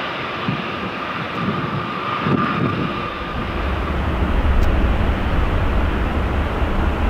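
Boeing 777-300ER's GE90 turbofan engines at taxi power: a broad jet rush with a steady whine over it. About three seconds in, a deep low rumble comes in and stays.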